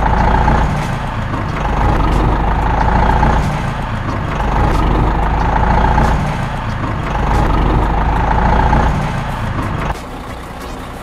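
Truck engine sound rising and falling in swells about every two and a half seconds, with a deep rumble. It starts and cuts off abruptly.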